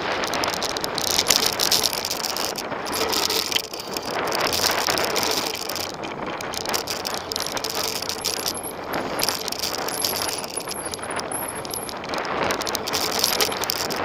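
Cube LTD Race XT edition mountain bike riding fast down a dirt trail: tyres rolling over the dirt, with the bike rattling and knocking over the bumps.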